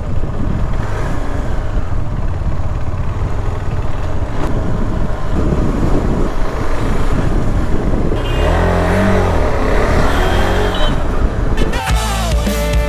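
Motorcycle engine running on the move, with wind rushing over the microphone. The engine note swells and falls about two-thirds of the way through. Rock music comes in near the end.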